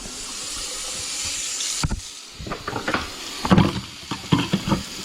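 Water running with a steady hiss that stops abruptly about two seconds in, followed by a series of sharp clattering knocks.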